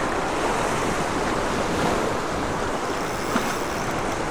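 Ocean surf breaking and washing over the boulders of a rock jetty, with wind buffeting the microphone. A single small click comes near the end.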